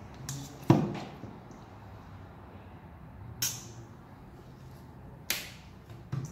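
Handling noises from a stainless steel mixing bowl and spoon as cream cheese is put in: a few sharp knocks and clinks, the loudest with a short ring a little under a second in, then two brief rustling scrapes later on.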